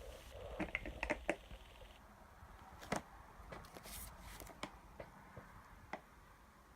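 Faint, irregular clicks and knocks of small objects being handled, with a cluster in the first second or so and more around the middle.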